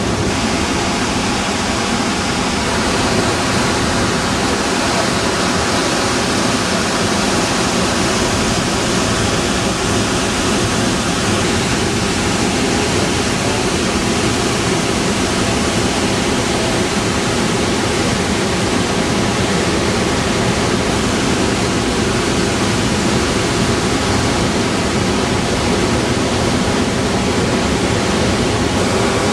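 Waterfall rushing through a narrow rock gorge: a steady, loud rush of white water pouring and churning among the rocks.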